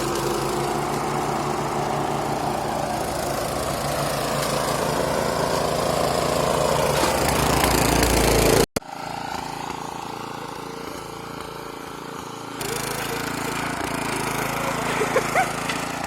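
Snapper riding lawn mower's engine running as it is driven, growing louder until a sudden cut about nine seconds in, after which it is heard running more quietly.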